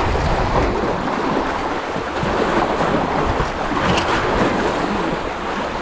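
Sea water surging and washing among shoreline rocks, with wind buffeting the microphone. A short sharp noise comes about four seconds in.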